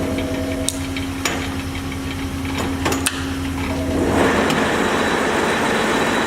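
1941 Monarch geared-head lathe running under power, its headstock gearing giving a steady hum, with a few light clicks in the first three seconds. About four seconds in, the running grows louder and fuller.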